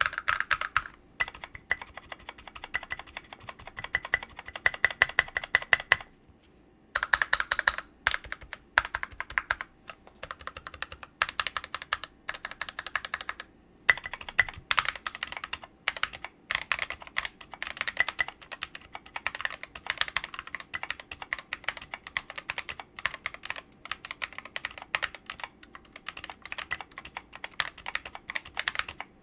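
Typing on a mechanical keyboard with Kailh Cream switches and SA-profile keycaps: fast runs of key clacks, with short pauses about six and fourteen seconds in.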